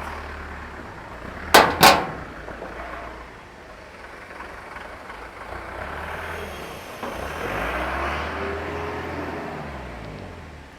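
Low machinery rumble with two sharp knocks in quick succession about a second and a half in, then a louder stretch near the end in which a motor's pitch rises and falls.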